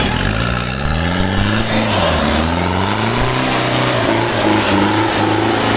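Off-road 4x4's engine revving hard under load as it climbs out of a mud pit, its pitch rising and falling several times.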